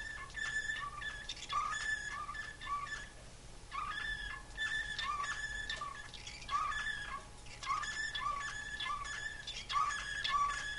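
Slavujar song canary singing: repeated phrases of held high whistles and short rising notes, with a brief break about three and a half seconds in.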